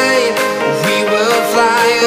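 Background pop song: a melodic line gliding over sustained chords.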